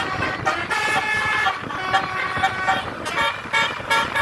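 Bus 'telolet' musical horn: multi-tone air horns playing a run of held notes that change pitch every half second or so, with short breaks between phrases.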